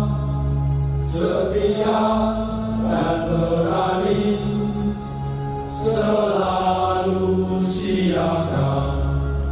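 A group of men singing an Indonesian military hymn in unison, on long held notes with hissing 's' sounds every couple of seconds.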